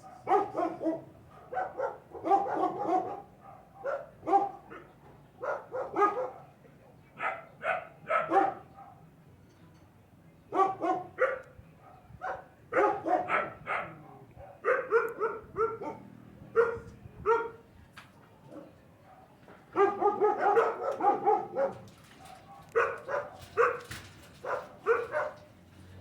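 Puppies barking repeatedly in quick runs of short, sharp barks, worked up after a commotion, with brief lulls about ten seconds in and again a little before twenty seconds.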